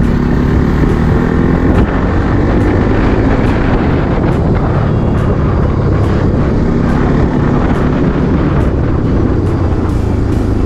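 Bajaj Pulsar NS200's single-cylinder engine running steadily while the motorcycle is ridden at speed, heavily mixed with wind rush and road noise.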